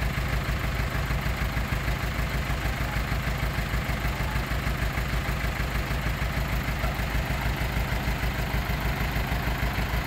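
Heavy diesel engine idling steadily, with an even low throb.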